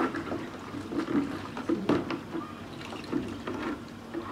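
Water splashing in a cut-open plastic jerrycan as hands are washed in it, in irregular splashes and knocks, loudest about two seconds in.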